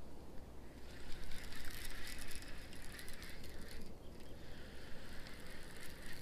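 Fishing reel being cranked to retrieve a lure: a whirring with fine rapid ticks, in two spells with a brief pause about four seconds in.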